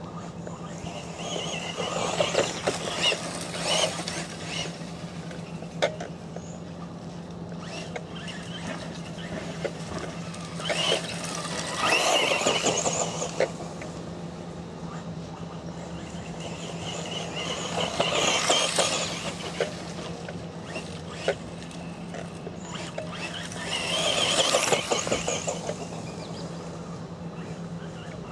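Tamiya Frog electric RC buggy with a 19-turn brushed motor driving past on a dirt track four times, each pass swelling and fading with motor whine and tyres crunching on grit, the loudest passes about twelve and twenty-four seconds in. A steady low hum runs underneath.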